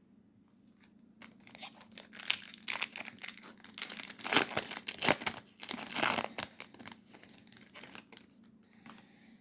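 Trading card pack wrapper being torn open and crinkled: a dense crackling rustle that builds to its loudest in the middle and dies away near the end.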